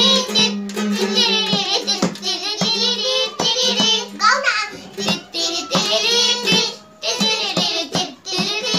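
Young children singing a Nepali song together, with a madal hand drum tapped in a steady beat about twice a second and a small ukulele strummed along.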